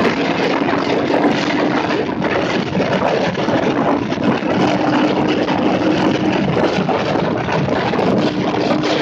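Motorcycle engine running at steady revs while riding, under heavy wind rush.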